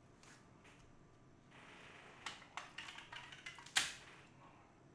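Faint crackling and clicking of plastic food packaging being handled, with a sharper snap a little before the end, as a fresh portion of chicken feet is unpacked with plastic-gloved hands.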